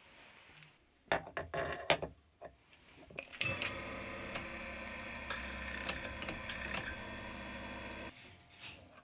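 A few sharp metal knocks and clicks as the part is set in the machine vise, then the milling machine's spindle motor runs steadily with a small drill bit at the brass bearing block, stopping about a second before the end.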